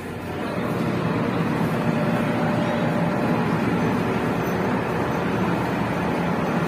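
Steady drone of a car ferry's engines and machinery, growing louder in the first second and then holding level.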